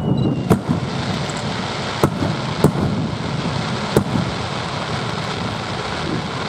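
Fireworks display: four sharp bangs in the first four seconds, over a steady rumble and crackle of further bursts.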